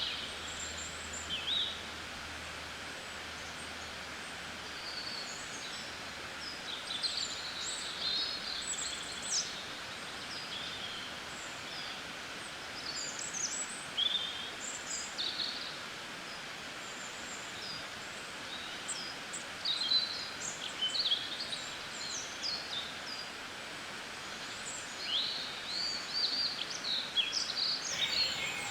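Small songbirds chirping and singing in short, high calls and trills, many overlapping, over a steady background hiss.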